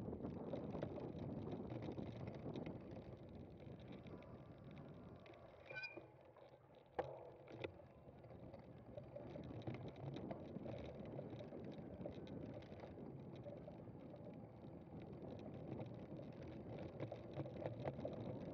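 A cyclocross bike being ridden over a rough course, with a steady rumble and rattle from the tyres and drivetrain. It eases off about six seconds in, gives a couple of sharp clicks around seven seconds, then picks up again.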